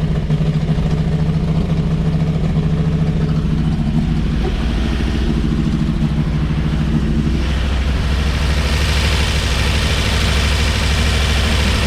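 1954 Chevrolet 3100 pickup's straight-six engine running steadily at idle. About seven and a half seconds in its note shifts lower and a hiss comes up over it.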